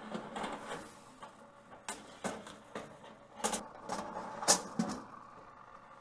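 Metal clinking and clattering of wire oven racks and metal baking trays being pushed and adjusted inside a toaster oven, a handful of sharp knocks with the loudest about four and a half seconds in.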